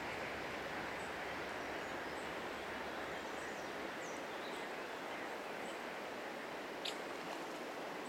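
Steady rush of a shallow river flowing over stones, with small birds chirping faintly and high; one short, sharp bird call stands out about seven seconds in.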